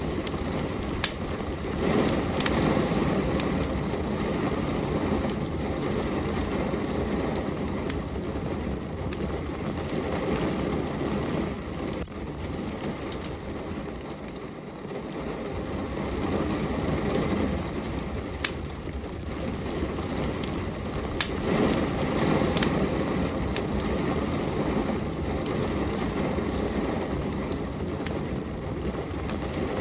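Steady rain with a wood fire burning, the fire giving occasional sharp crackles and pops, a few of them close together near the start and again past the middle. The rain's rush slowly swells and eases.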